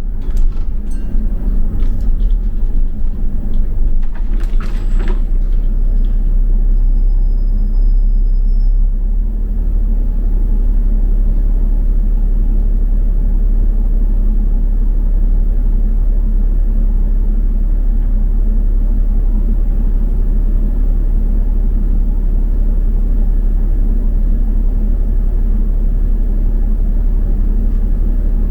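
Steady low rumble of a double-decker bus on the move, heard from inside the passenger cabin, with a few knocks and rattles in the first several seconds.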